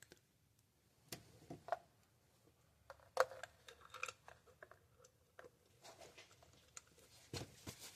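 Faint, scattered clicks and light metallic taps of a spark plug and socket being worked down into the Ford Escape 2.5L four-cylinder's deep plug well, with one sharper clink about three seconds in.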